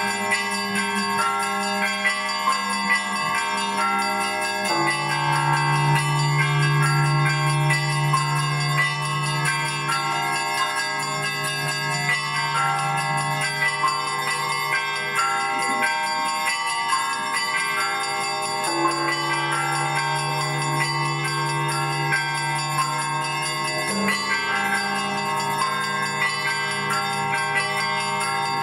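Russian Orthodox church bells (kolokolny zvon) rung by hand: a quick, continuous chiming of the smaller bells over the lingering hum of deeper bells. The deep hum shifts to a lower pitch about five seconds in, and changes again near nineteen and twenty-four seconds in.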